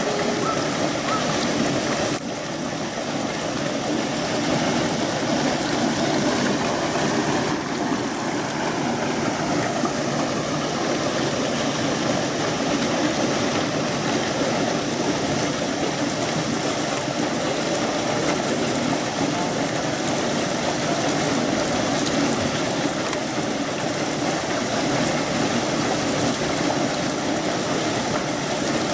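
Steady rush of flowing water, with small level shifts about two and seven and a half seconds in.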